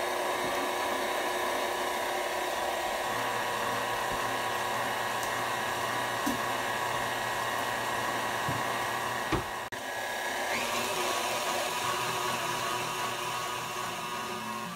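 KitchenAid stand mixer's motor running steadily, its beater turning through chocolate cake batter in a stainless steel bowl. The sound briefly cuts out about nine and a half seconds in, then resumes.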